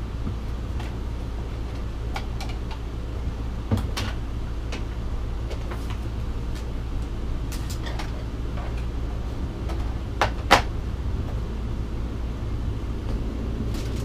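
Scattered clicks and knocks of jars, bottles and food containers being lifted out of a refrigerator and set down, over a steady low hum; the sharpest knock comes about ten and a half seconds in.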